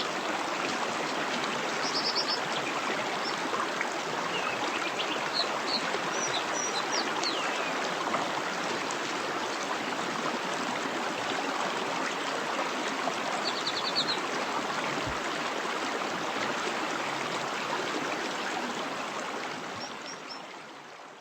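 Fast, clear mountain stream rushing steadily over rocks, with a few short, high bird calls. It fades out near the end.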